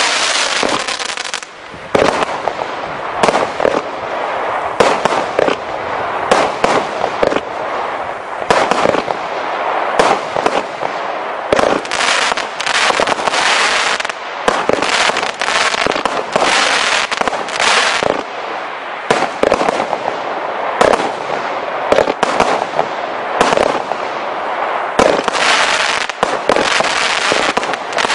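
Absolute Fireworks 908 Triumph firework cake firing shot after shot: a rapid, irregular string of sharp bangs over a constant hiss, with a short lull about a second and a half in.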